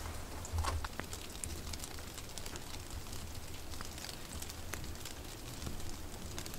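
Light rain falling, with scattered drops ticking on leaves and surfaces over an even hiss and a low steady rumble underneath.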